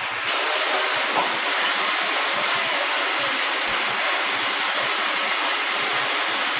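Water running from a bathtub tap into the tub, a steady rush that starts just after the beginning.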